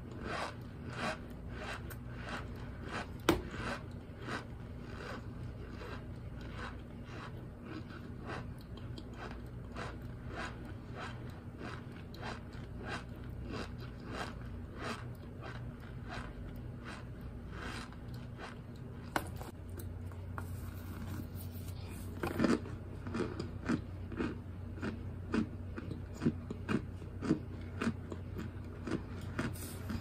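A person chewing and crunching chunks of baked Argo cornstarch close to the microphone: a steady run of short crunches, about two a second, growing louder in the last third.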